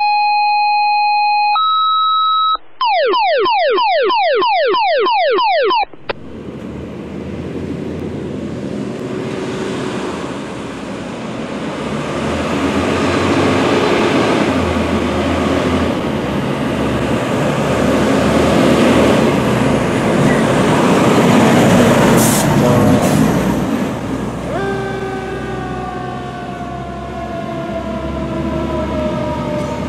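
A short electronic intro of steady beeps and a fast run of falling chirps, then a fire engine responding with its siren sounding over the engine as it approaches and passes. Near the end the siren winds slowly down in pitch.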